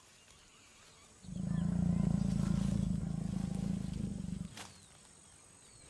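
Jaguar growling: one long, low, rasping growl that starts about a second in and lasts about three seconds, an aggressive warning between a courting pair.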